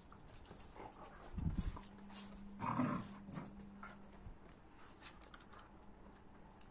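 Dogs play-fighting: a low growl with a thump a little after one second, then a short bark near three seconds, followed by quieter scuffling.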